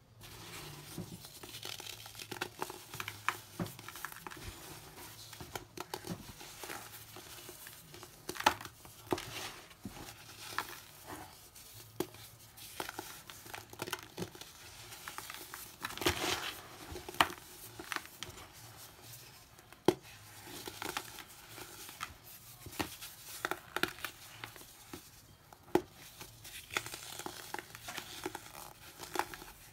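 Dried, hardened baking soda clumps crunching and crumbling as they are squeezed and broken apart by hand, with frequent sharp cracks through a steady crackle.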